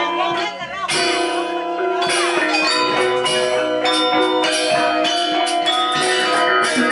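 Balinese gamelan playing: struck bronze metallophone keys and gongs ringing, with quick repeated strokes.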